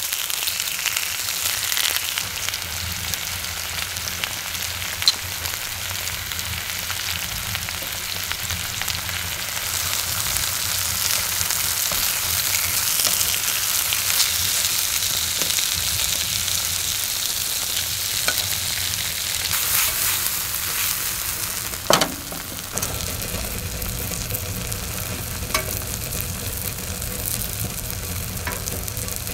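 Food sizzling as it fries in a pan on a camping wood stove, with a few light knocks, the loudest about 22 seconds in.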